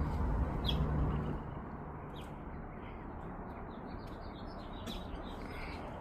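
Birds chirping faintly in a run of short high notes, after a low rumble that fades out about a second and a half in.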